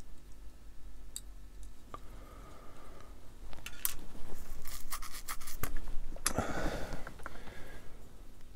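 Small plastic model-kit parts being handled and fitted by hand: scattered light clicks and scratchy rubbing, busier in the second half, with a longer scrape near the end.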